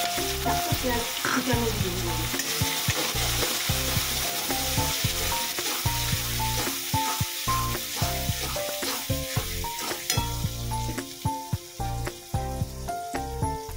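Sliced onions frying in hot oil in an aluminium kadai, sizzling loudly at first and quieter from about ten seconds in, with a metal spatula scraping and stirring against the pan.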